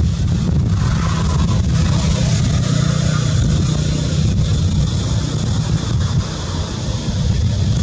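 A steady, loud low rumble with an even hiss above it, slightly brighter early on.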